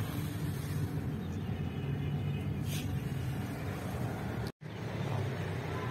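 Steady low outdoor rumble with no speech, with a faint tick about halfway through; the sound cuts out for a moment near the end.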